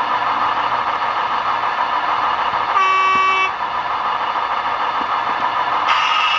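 Sound decoder in an N-scale JW4 catenary maintenance rail car model playing a diesel engine running sound through its small speaker, with a single short horn toot about three seconds in. The engine sound turns brighter near the end.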